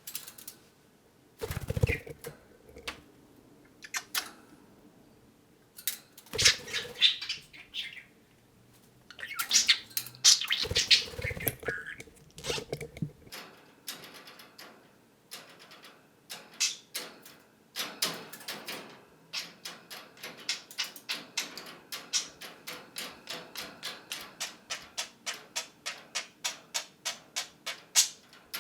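Budgerigar chirping and chattering in short bursts. About halfway through, a steady run of sharp clicks starts, about two or three a second.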